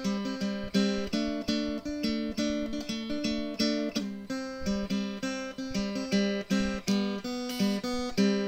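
Background music: strummed acoustic guitar chords in a steady rhythm.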